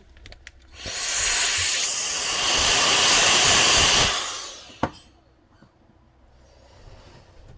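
A small electric blower blowing air in one steady blast of about three seconds, its high motor whine rising as it starts and falling as it stops, used to blow dust out of the opened watch. A single sharp click follows just after.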